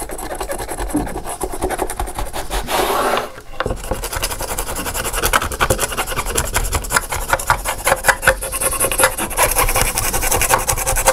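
Rapid scraping and rubbing along the rim of a tray, stroke after stroke, working stuck gold leaf off the edge, with a short pause about three and a half seconds in.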